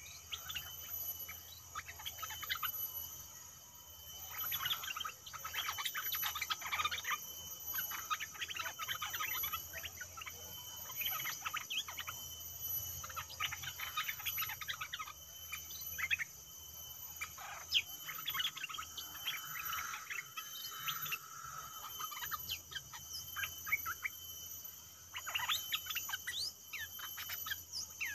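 Bulbuls calling in repeated bursts of quick chirping notes, a caged decoy used to lure wild birds, over a steady high insect whine.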